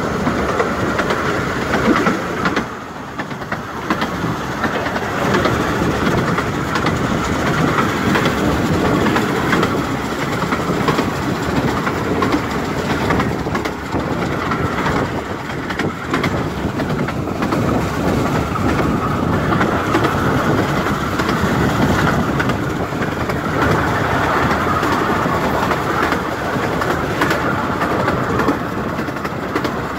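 A 15-inch-gauge narrow-gauge train running along the line: a steady rolling rumble with the wheels clicking over the rail joints.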